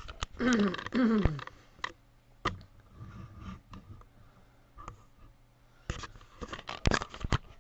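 Scattered clicks and knocks from a small camera tripod being handled and repositioned, with a dense run of sharp clicks near the end. In the first second and a half a voice makes two short falling, wordless sounds.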